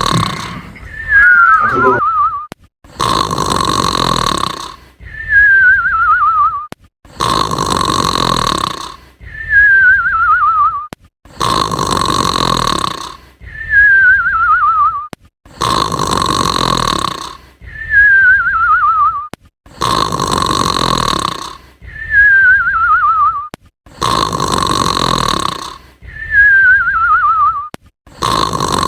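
Repeated snoring, one cycle about every four seconds: a loud rasping snore, then a wavering whistle that falls in pitch.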